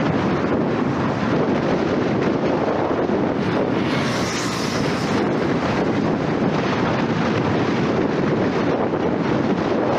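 Steady wind and road noise of a car driving at highway speed, with wind buffeting the microphone. About four seconds in, a brighter hiss rises for a second or so.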